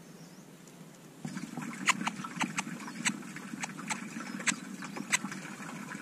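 Sharp, high bird calls at a nest, each dropping quickly in pitch, about eight of them in three seconds. They start just under two seconds in, over a steady low rush that begins about a second in.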